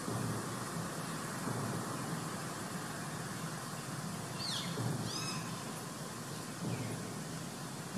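Steady engine and road noise of a pickup truck and a motorbike passing. About halfway through comes a short run of high, falling chirps.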